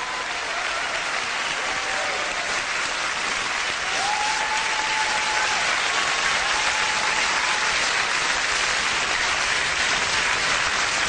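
Crowd applauding steadily, with a few faint drawn-out calls over it about four and seven seconds in.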